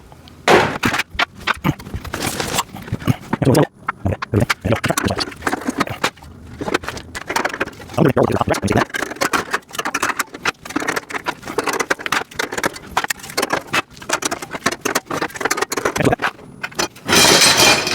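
Irregular clattering and knocking of metal rack parts and plastic parts bins being handled during assembly of a storage rack, with a louder noisy stretch about a second long near the end.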